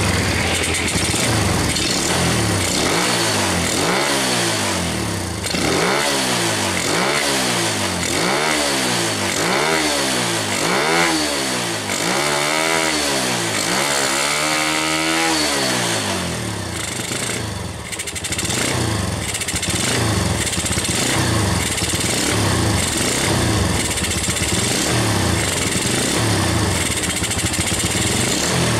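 Yamaha Vega four-stroke motorcycle engine with a PE28 carburettor and standard exhaust, revved in quick blips, each rising and falling about once a second. In the second half it runs at lower revs with smaller regular pulses. The engine is heavy at low revs, which the mechanic puts down to a pilot jet that is too big.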